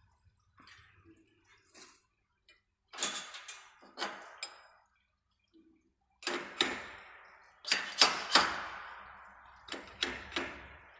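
Sharp metal clicks and knocks from a chain link fence weaving machine's steel hook bar and fittings being handled and adjusted. The knocks come in small groups, each ringing briefly, and are loudest about eight seconds in.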